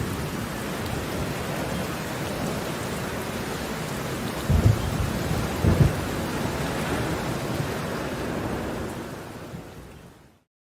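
Steady rain with low thunder rumbles, loudest about four and a half and six seconds in. The sound fades out near the end and stops.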